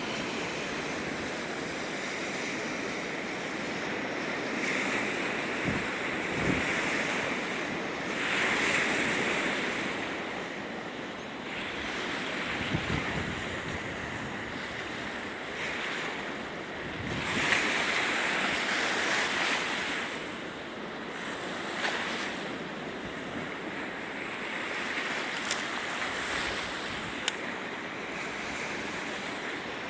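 Strong wind blowing in gusts, a rushing noise that swells and eases several times, with the loudest gusts about a third and about two thirds of the way through.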